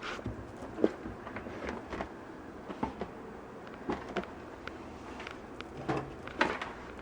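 Light clicks and knocks of plastic being handled, the folding panels and body of a collapsible portable washing machine, scattered irregularly with a sharper knock about a second in and several more near the end.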